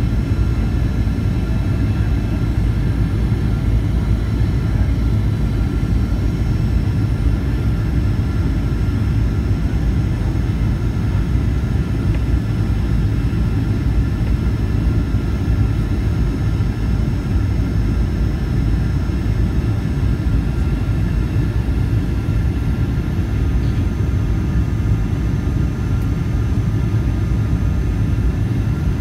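Boeing 737-800 cabin noise from a window seat over the wing during the descent to land: the CFM56-7B engines and airflow make a steady low rumble with a faint steady whine above it.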